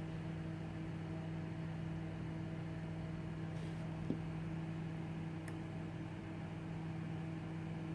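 Steady low electrical hum with a fainter overtone above it, and a single faint click about four seconds in.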